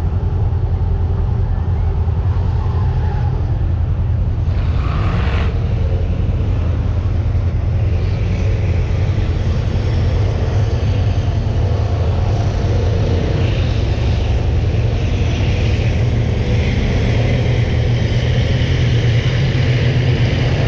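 Steady low engine rumble, with racing school buses on the dirt oval growing louder over the second half.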